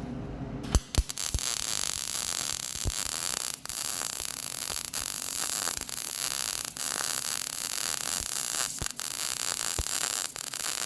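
MIG welding arc from a Lincoln Power MIG 255C struck about a second in with a couple of sharp pops, then a steady crackling hiss as a bead is run on steel plate at about 17.4 volts, broken by a few brief gaps.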